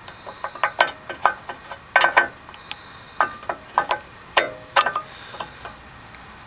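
Sharp metallic clicks and clinks of a new front brake pad being worked into the caliper bracket, an irregular run of knocks that stops about five seconds in.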